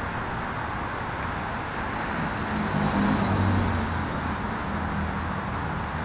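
Steady wind noise, a rushing hiss, with a low hum swelling a couple of seconds in and fading again before the end.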